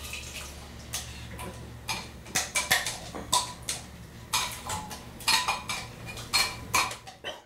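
Kitchen utensils clinking and knocking against a stainless steel saucepan and the stovetop: a string of irregular sharp clicks, some with a short metallic ring.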